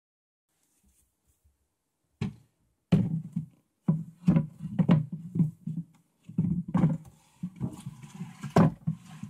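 Particle-board file cabinet drawer being pushed and pulled by its handle, giving a run of irregular knocks and rattles from about two seconds in. It is running on a makeshift wooden-dowel guide that replaces its broken rail.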